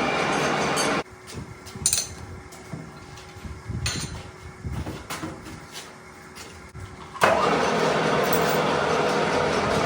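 Manual metal lathe running in a workshop, with scattered clinks and knocks of metal handling. A loud, steady machining noise cuts off about a second in and comes back suddenly near seven seconds, leaving a quieter stretch with a faint steady hum between.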